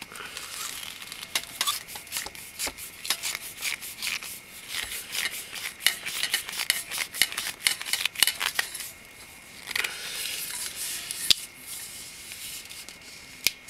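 A flashlight's screw-on end cap being twisted tight by hand: rapid scraping and ticking of the threads through most of the time. The ticking thins out after about nine seconds, and a few sharp single clicks follow near the end.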